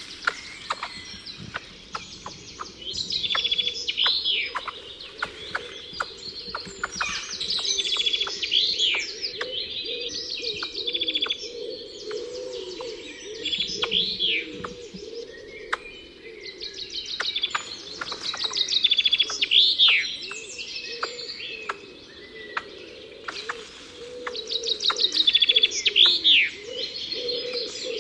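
Songbirds singing: one bird repeats a song phrase every four to six seconds, each phrase ending in a high note that rises and falls, among many short chirps from others. A lower wavering sound runs steadily underneath.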